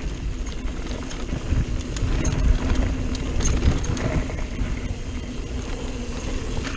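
Mountain bike riding along a dirt singletrack: tyre noise on the trail with scattered clicks and rattles from the bike, and a few louder knocks in the middle, over a low wind rumble on the camera microphone.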